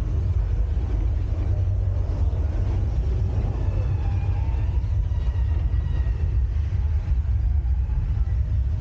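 Steady deep rumble heard from inside an open-sided Studio Tour tram. Faint higher tones come and go in the middle.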